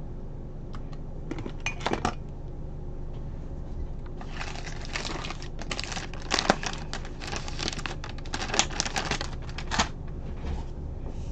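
Soft plastic pack of wet wipes crinkling and rustling as it is opened and a wipe is pulled out, after a few light clicks about two seconds in.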